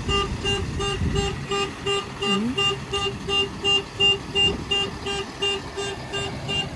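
Electronic warning beeper on road construction machinery, beeping rapidly and evenly at about three beeps a second, over the low rumble of a running engine.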